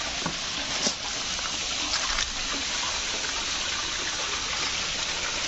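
Steady rush of running water, with a few faint knocks in the first two seconds.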